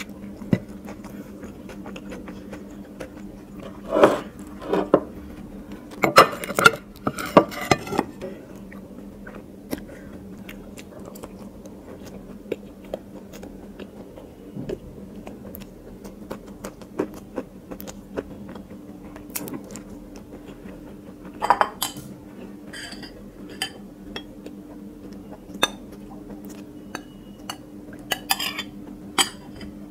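Ceramic plates and bowls clinking and clattering on a table, in a few short clusters of sharp knocks, as biryani is eaten by hand. A steady low hum runs underneath.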